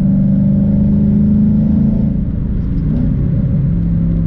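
Ford Mustang's engine running while driving, its note climbing slightly, dipping about two to three seconds in, then holding steady at a lower pitch.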